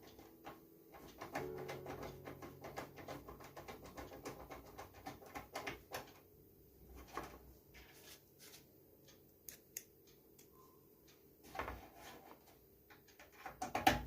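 Screwdriver driving the power supply's mounting screws into the metal PC case: a fast run of small clicks and ticks, thinning out midway, with a few sharper knocks near the end.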